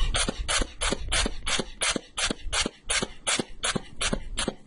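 Manual blood pressure cuff (sphygmomanometer) being emptied: air let out in short hissing puffs, about three a second.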